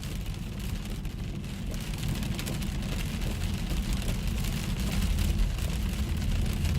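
Heavy rain falling in a thunderstorm, an even hiss dotted with many small ticks of drops, over a steady low rumble that grows slowly louder.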